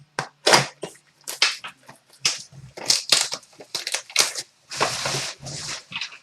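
Crackling and tearing of packaging as a sealed box of trading cards is ripped open. It comes as a quick run of short, irregular crinkles, with a longer stretch of rustling about five seconds in.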